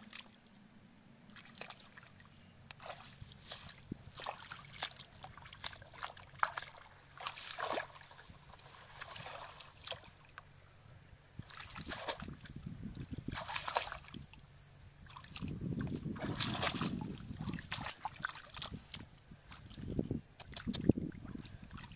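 Hands splashing and sloshing through shallow muddy water while groping for fish, in irregular bursts of different lengths, with a sharp splash near the end.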